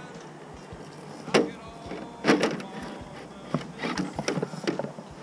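Scale RC rock crawler clambering over logs and rough ground: sharp knocks and clatters, one about a second and a half in, another near two and a half seconds, then a quick run of them in the second half.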